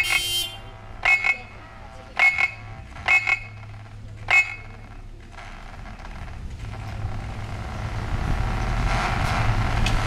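Car-alarm siren chirps played through speakers on the cars' roofs: five short, sharp-toned bursts about a second apart. After them a low rumbling noise swells up and grows louder toward the end.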